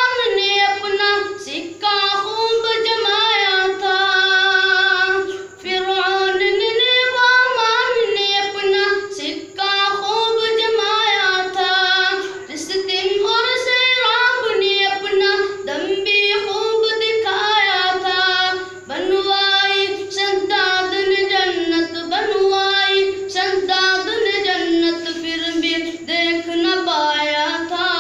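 A boy singing a naat unaccompanied into a microphone, in long ornamented phrases with a wavering pitch and short breaths between them. A faint steady low hum runs underneath.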